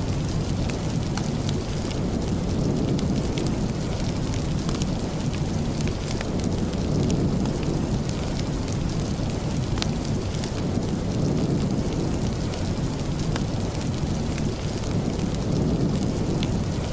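Steady rain ambience with a deep, even rumble, layered with a wood fire crackling: many small sharp ticks and pops scattered through it.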